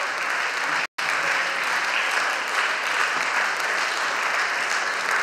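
Audience applauding steadily as the dancers take their bows, with the sound cutting out for an instant just under a second in.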